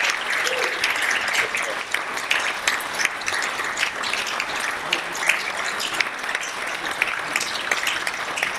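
Audience applauding, the clapping thinning out a little toward the end.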